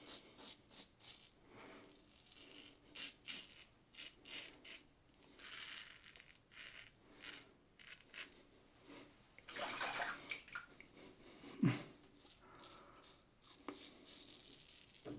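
Merkur 37C slant double-edge safety razor scraping through lathered stubble in many short strokes. One brief louder low sound comes a few seconds before the end.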